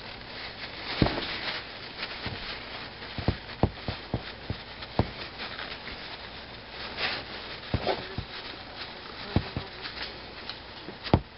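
Cloth rag rubbing over a metal oil drain plug as it is wiped clean of oil, with scattered sharp clicks and taps from the plug being handled.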